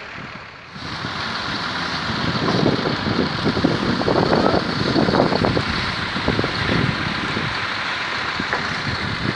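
Concrete pump truck's engine running steadily, with wind on the microphone. It starts about a second in and is loudest in the middle.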